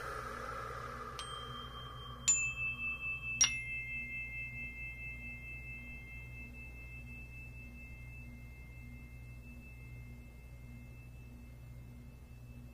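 Three clear metallic chime strikes about a second apart, each lower in pitch than the last. The tones ring on and slowly fade over about ten seconds.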